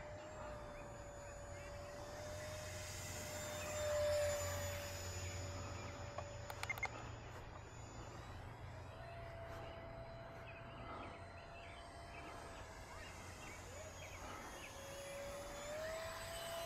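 Electric RC plane's brushless motor and propeller whining in flight, a steady tone. It swells about four seconds in, steps up in pitch about nine seconds in, and rises in pitch and loudness again near the end as the plane passes close.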